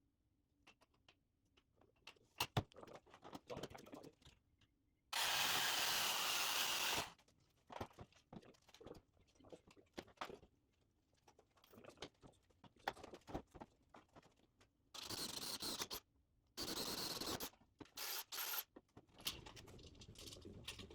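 Hands working on a steel garage door opener rail and its parts, with scattered clicks and scrapes, broken by short bursts of a power tool: the loudest runs about two seconds from about five seconds in, and two shorter ones come near the three-quarter mark.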